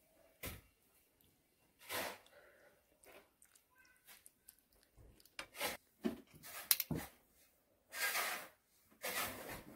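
Metal spoon stirring and scraping a mixture of eggplant, potato, tomato and egg in a frying pan: irregular short wet scrapes and knocks against the pan.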